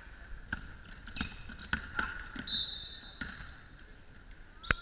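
Basketball bouncing on a wooden sports-hall floor: a string of thuds about every half second to second, with a louder thud near the end. Short high squeaks, like trainers on the floor, come in between.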